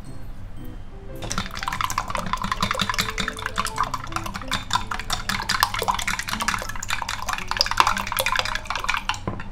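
Wooden chopsticks beating raw eggs in a glass measuring jug: a fast, continuous run of clicking and sloshing strokes that starts about a second in and stops just before the end.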